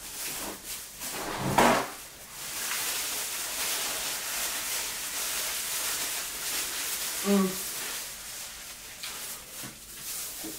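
A single loud thump about a second and a half in, then several seconds of steady crinkling and rustling as a paper towel is rubbed over plastic-gloved hands.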